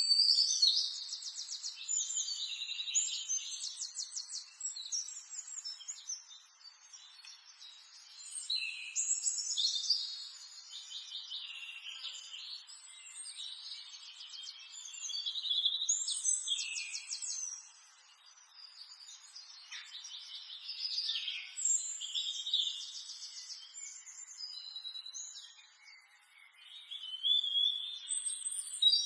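Small songbirds singing: fast, high trills and chirps that come in bursts every few seconds.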